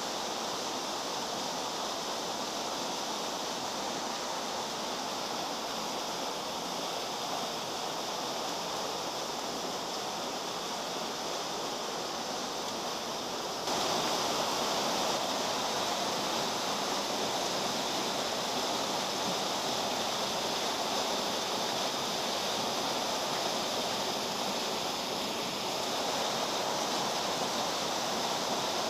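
Steady rush of flowing stream water, with no distinct splashes or knocks, becoming a little louder about halfway through.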